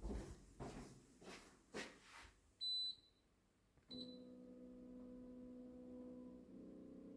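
Split air conditioner's indoor unit beeping in answer to remote-control button presses: a clear high beep about two and a half seconds in, then a shorter one about a second later. A steady low hum sets in with the second beep and runs on, after a few soft handling sounds at the start.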